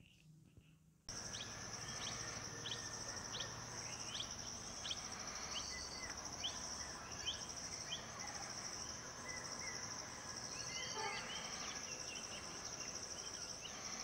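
Natural field ambience: a steady high insect drone starting about a second in, over a run of short rising bird chirps, about one every three-quarters of a second, followed later by scattered twittering.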